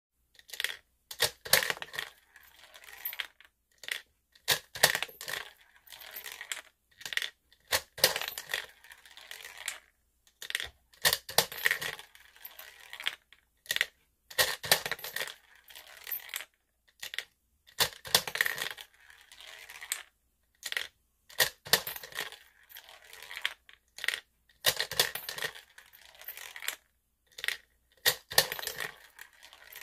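Plastic toy gumball machine worked by hand: coins clinking, the plastic lever clicking and gumballs rattling down the plastic spiral chute. The clicks and rattles come in repeated short bursts every second or two.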